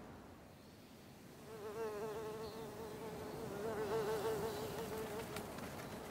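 A flying insect buzzing, a wavering drone that comes in about a second and a half in and breaks off about five seconds in, over a soft steady outdoor ambience. A few faint ticks follow near the end.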